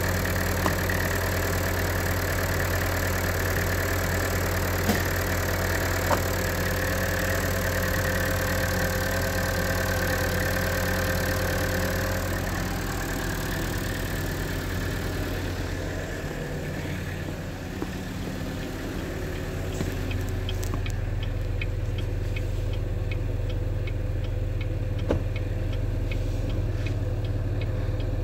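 2017 Buick Encore's 1.4L turbo four-cylinder Ecotec engine idling steadily, running well. In the second half, the indicator flasher ticks evenly at about two ticks a second over the idle.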